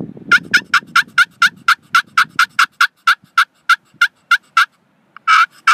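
Primos Bamboozled glass pot turkey call worked with a bamboo striker, cutting: a fast run of short, sharp clucks, about five a second, imitating an excited hen turkey. After a brief pause a louder, longer note comes near the end, and the clucks start again.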